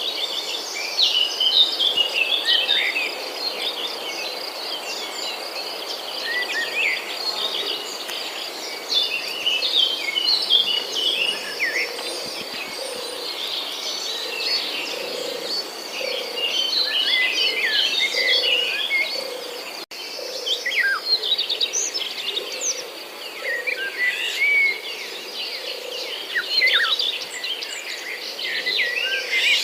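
A flock of small birds chirping busily and continuously among corn plants, over a steady high insect buzz. A soft low note repeats about once a second underneath.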